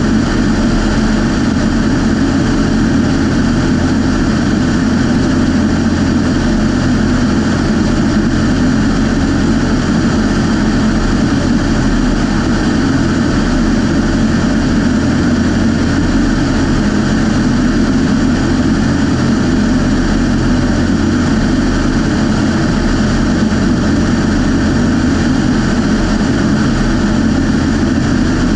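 Light survey aircraft's piston engine and propeller droning steadily at constant power, with rushing air over the externally mounted camera.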